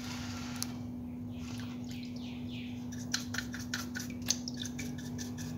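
The rotor of an Escualo spinning reel being scrubbed in a tray of diesel: a run of short wet swishing strokes, then quick clicking, splashy strokes over the last couple of seconds. A steady low hum runs underneath.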